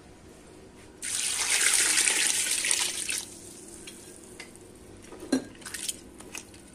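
Water poured into a cooking pot for about two seconds, then a few light knocks and clinks.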